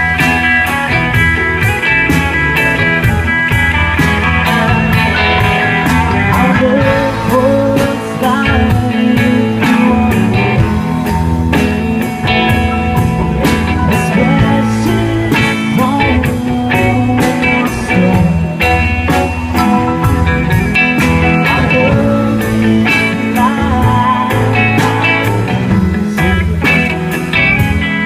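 Live rock band playing an instrumental passage without vocals: electric guitars and keyboard over drums keeping a steady beat.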